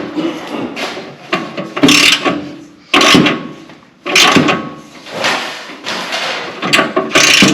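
Ratchet and socket tightening a race car's seat bolts into the metal seat mount: a run of metal clanks and scrapes about once a second, each ringing briefly.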